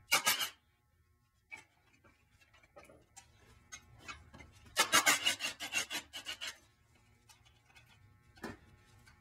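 Milwaukee cordless 3/8-inch-drive impact wrench hammering on a disc brake caliper bolt to break it loose: a short burst right at the start, then a longer burst of about two seconds about five seconds in. Light metal clicks between the bursts and a single knock near the end.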